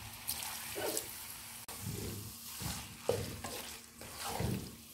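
A spatula scraping and stirring diced boiled potatoes in a metal karahi in irregular strokes, over a light sizzle of frying, with a little water just added to the pan.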